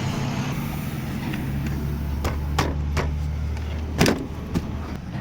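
Sharp plastic clicks and knocks from a van's interior door panel and lock parts being fitted into place, about six of them, the loudest about four seconds in, over a steady low hum.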